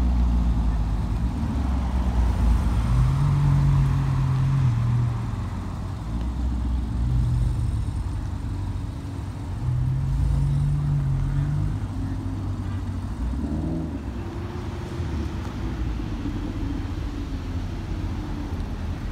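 Supercar engines rumbling at low revs as cars roll slowly past and pull in, a deep steady exhaust note that swells twice, about three and ten seconds in.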